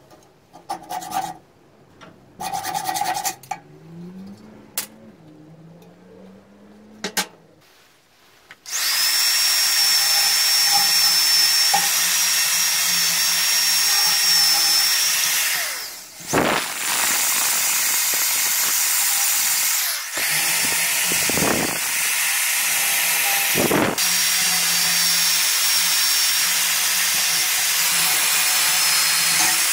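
A few short hacksaw strokes and knocks on steel, then, about nine seconds in, a corded electric drill starts and runs steadily under load against the steel reel of an old cylinder lawnmower. It makes a high whine over a loud hiss and eases off briefly a few times.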